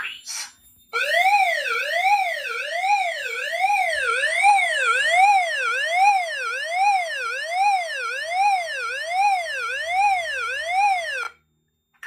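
Agent release (suppression releasing) signal from a Wheelock E70 speaker strobe: a siren-like tone sweeping evenly up and down, about one and a half sweeps a second. It starts about a second in and cuts off abruptly near the end. It signals that the fire suppression releasing system has been activated.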